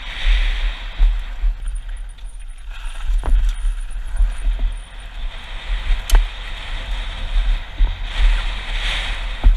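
Downhill mountain bike running fast over a dirt-and-gravel trail, heard from a helmet-mounted camera: wind buffeting the microphone over a steady rush of tyres on loose ground, with a few sharp knocks from the bike over bumps.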